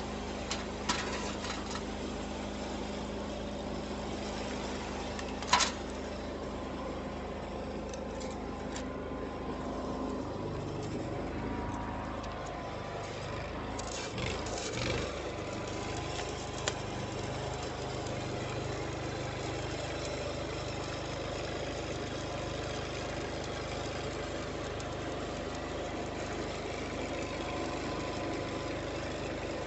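Engine idling steadily after repair of its fuel injection line, its low note shifting about ten seconds in. A few short sharp clicks sound over it, the loudest just after five seconds.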